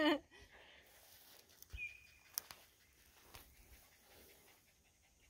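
Quiet outdoor ambience with a few faint clicks and one brief, faint high chirp about two seconds in.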